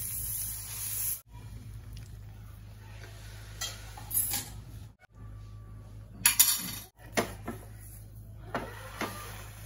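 Butter sizzling on a hot flat tawa griddle, then a metal spatula clinking and scraping against the pan in a few sharp knocks, the loudest about six seconds in.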